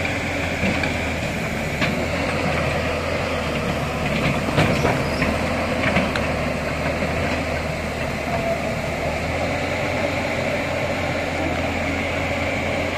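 Tata Hitachi EX210 crawler excavator's diesel engine running steadily while its boom and bucket work, with a few short knocks about four to six seconds in.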